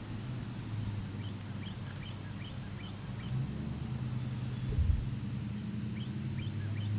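A bird chirping in two quick runs of short, high notes over a steady low hum, with one soft low thump near the middle.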